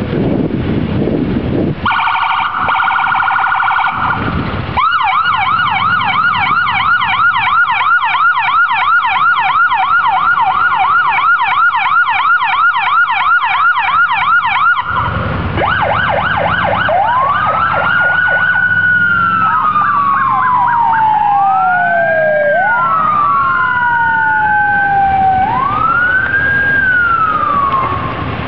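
Police vehicle sirens: a brief rapid warble, then a fast yelp for about ten seconds that cuts off, followed by several sirens wailing slowly up and down, overlapping one another near the end.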